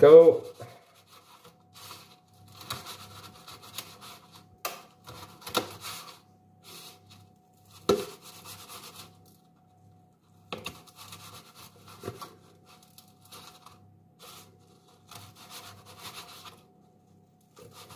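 Small knife sawing through crispy breadcrumbed chicken goujons on a metal baking tray, in short intermittent scraping strokes, with a few sharp knocks as the blade hits the tray, the loudest about eight seconds in.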